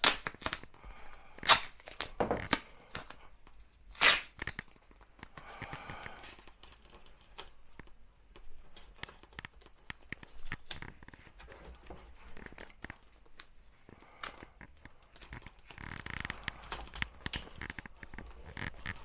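Duct tape being pulled off the roll and torn, with a few sharp knocks from handling in the first few seconds.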